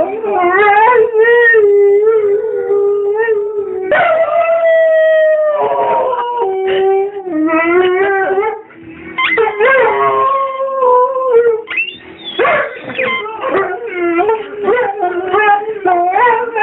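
Rhodesian Ridgeback howling, a long series of drawn-out, wavering howls that slide up and down in pitch, with short breaks between them.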